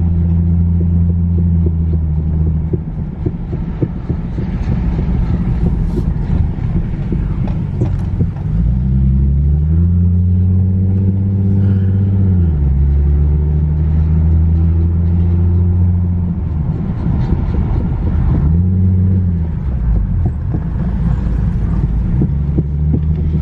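Infiniti G37S's 3.7-litre V6 on the move: a loud, steady low drone whose pitch climbs and drops twice, mixed with the helicopter-like rumble of a driver's-side wheel bearing that the owner takes to be loose and failing.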